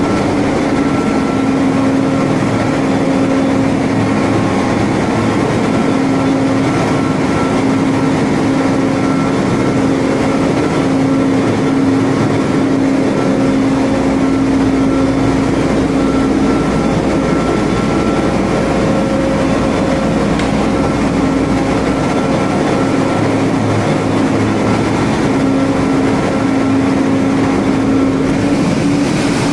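Running engine-room machinery of an LNG carrier with dual-fuel diesel-electric propulsion: a loud, steady roar carrying a constant low hum and a fainter higher whine.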